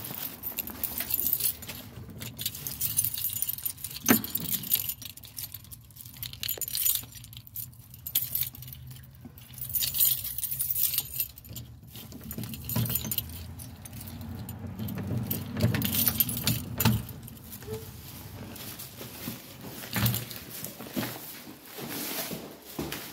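A bunch of keys jangling again and again, with a key worked in a metal door's lock, and a plastic carrier bag rustling.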